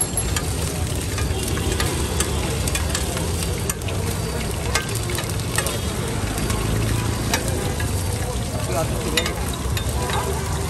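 Food frying and sizzling steadily in hot oil, with occasional sharp taps.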